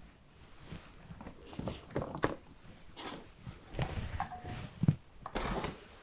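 Tomatoes being handled and set down in a wire basket lined with brown paper bags: irregular paper rustles and soft knocks, the loudest near the end.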